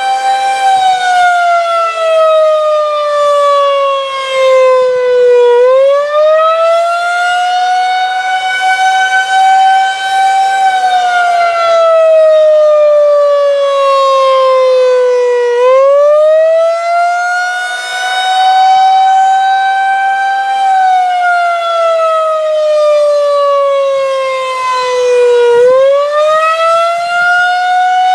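Federal Signal 2001-130 outdoor warning siren sounding its attack signal. It gives a loud wail that sinks slowly in pitch over about five seconds, swings back up within about two, then holds before falling again, dipping three times.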